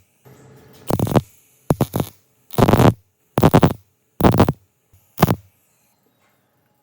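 A run of seven short rasping strokes, roughly one a second, typical of hand-tool work on metal, stopping about a second before the end.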